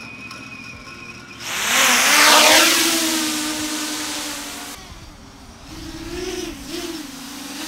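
7-inch FPV quadcopter's motors and propellers (T-Motor 2806.5 1500Kv motors) punching up about a second and a half in, a loud rush whose pitch slides down. It then settles into a propeller hum that wavers and rises and falls as the throttle changes during a test flight.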